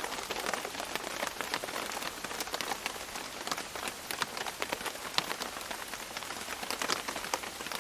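Steady rain with a dense patter of heavy drops falling on leaves, many separate drips landing at irregular times.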